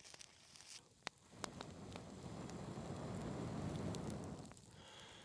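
Campfire crackling with scattered sharp pops. From about a second and a half in, a low rushing sound swells up and fades away over about three seconds.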